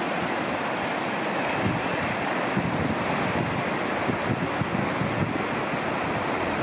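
West Fork of the San Gabriel River in high water after heavy rain, rushing and churning over rocks in a steady, loud roar of water.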